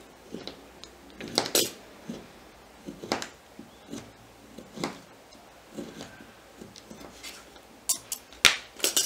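Light, scattered clicks and taps of a block of polymer clay being worked by hand on a cutting mat, as sliced pieces are broken off. Near the end come a few sharper metallic clicks as the steel clay blade is picked up.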